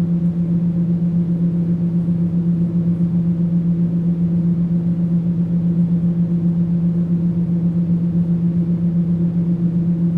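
Electric welding: a steady, loud electric buzz with a low hum at its core and a faint hiss above it, its level wavering slightly.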